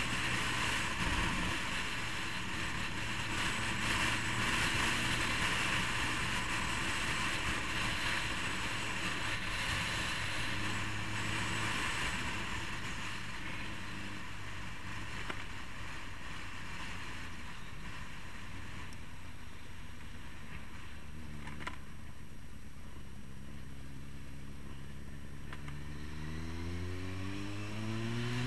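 Motorcycle engine running on the road, with wind rushing over the helmet-mounted microphone. Midway the bike slows through a roundabout and the wind drops away. Near the end the engine note rises as it accelerates out.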